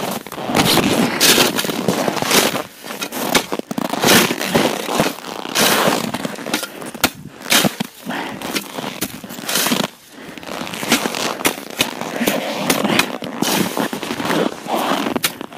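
A shovel scraping and shoving frozen snow and ice chunks, a run of irregular crunching scrapes as a fishing hole in the ice is buried over.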